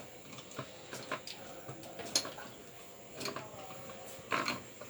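Water pushed by hand in a small tub to make waves: irregular short sloshes and light clicks, the loudest about four and a half seconds in.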